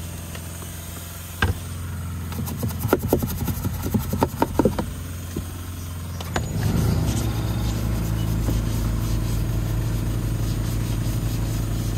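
A steady low engine-like hum, with a quick run of sharp clicks from a trigger spray bottle being squeezed in the first half. About six seconds in, the hum turns louder and a little higher.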